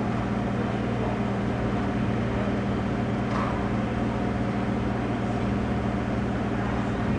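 A steady low hum made of a few fixed tones over a noisy background, with a faint short sound about three and a half seconds in.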